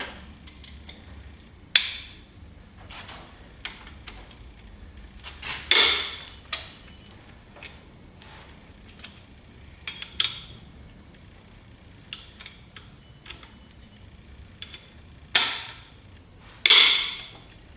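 Hand tools and steel parts clinking and clanking while the connecting rod caps are loosened and taken off a Chevy 350 small-block engine. Light ticks are broken by about five sharp metal clanks that ring briefly.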